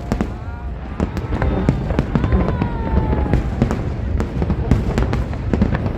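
Aerial fireworks bursting: many sharp bangs and crackles in quick succession over a continuous low rumble.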